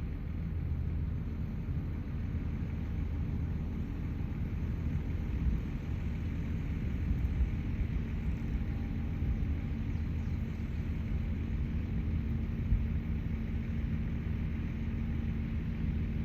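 Combine harvester running steadily while cutting wheat, heard from inside the cab: an even, low engine drone, with a few small knocks.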